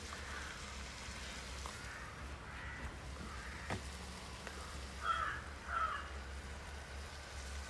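A bird calling faintly a few times, harsh short calls that are clearest about five and six seconds in, over a steady low hum.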